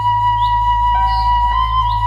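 Soft new-age background music carried by a flute-like melody of long held notes. A couple of short, high, rising bird chirps sound over it.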